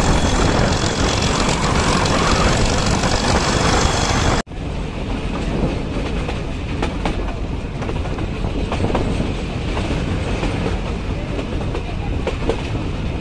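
Nilgiri Mountain Railway toy train running, its wheels clattering over the rail joints in a steady rumble. The sound breaks off sharply about four seconds in and picks up again.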